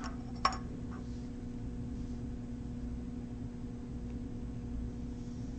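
One light tap of a hand against a glass jar about half a second in, over a steady low hum.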